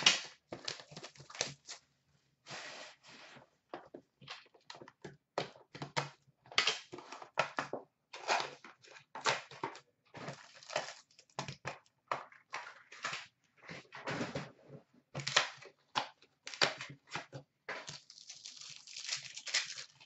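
Plastic wrapping being torn and crinkled as a sealed box of trading cards is unwrapped and opened: irregular rustling and tearing sounds, with a longer stretch of crinkling near the end.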